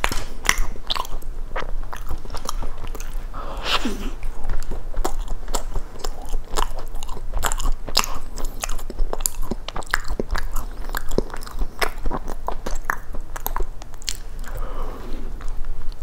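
Close-miked eating of a blueberry cookie cheesecake: repeated bites and chewing, the cookie crust crunching in many small, irregular crackles.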